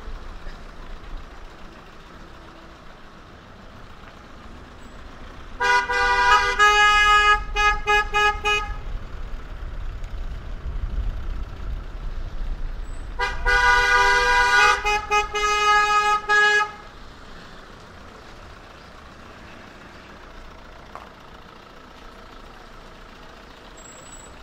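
A vehicle horn sounds in two bursts of about three seconds each, several seconds apart. Each burst is a run of quick toots that steps down from a higher pitch to a lower one. A low rumble runs underneath.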